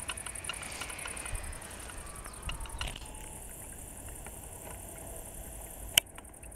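Faint steady outdoor background noise with scattered light ticks, and one sharp click about six seconds in.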